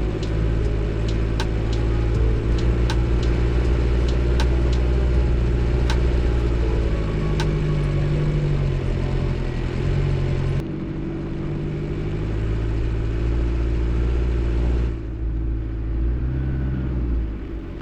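A 4x4's engine running with road noise on a dirt track, its pitch rising and falling as it works. Sharp clicks come through the first several seconds. The sound changes abruptly twice, about eleven and fifteen seconds in.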